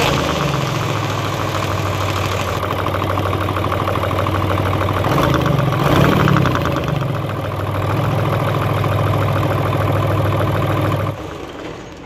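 Hino J08C six-cylinder diesel engine running with its air compressor head off, with a fast knocking noise. The noise comes from the air compressor, whose connecting rod has excessive play from a worn bearing and whose piston has seized from overheating. The engine is briefly louder about halfway, then is shut off near the end.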